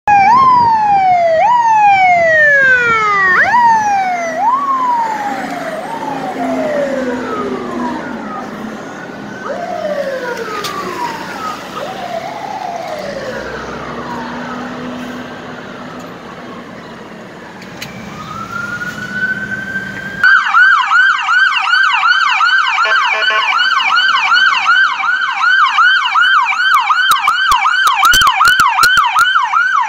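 Emergency sirens. First a fire engine's siren sweeps down in pitch again and again and fades as the truck moves off, with a low drone underneath. After an abrupt cut, an ambulance's electronic yelp siren is loud and close, rising and falling about three times a second.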